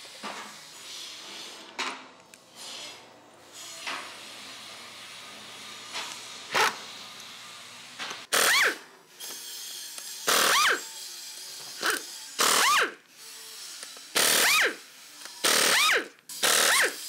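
Snap-on air impact wrench spinning off a wheel's lug nuts. From about halfway through, it fires in about seven short bursts, each with a whine that rises and falls.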